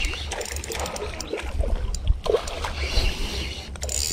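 Spinning reel cranked with many short, irregular clicks as a hooked fish is reeled in, under a steady rumble of wind on the microphone.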